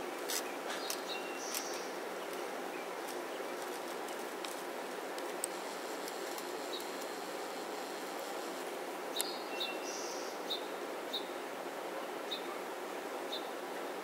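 Small songbirds chirping: short high chirps, a few near the start and then about one a second in the second half, over a steady outdoor hiss, with a few sharp clicks.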